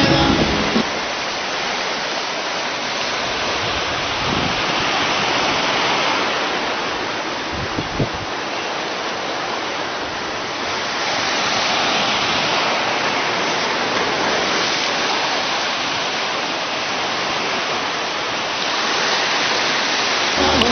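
Rushing river white water, a steady hiss of rapids, with one brief knock about eight seconds in.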